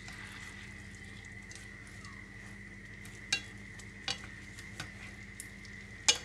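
Braising liquid of caramel sauce and water sizzling and bubbling around fish steaks in a stainless steel pan, with a few sharp clicks near the middle and end.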